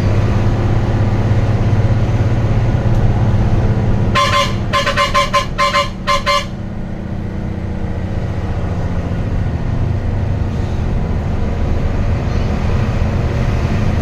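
Bus horn sounding a quick run of about five short toots about four seconds in, over the steady low hum of the bus engine running.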